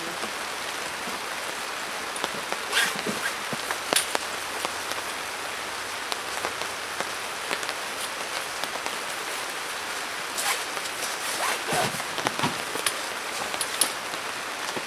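Steady rain falling, with scattered rustles of nylon fabric and light clicks of metal poles as a camp cot's frame poles are pushed through the sleeves of its bed fabric, a few near the start and more near the end.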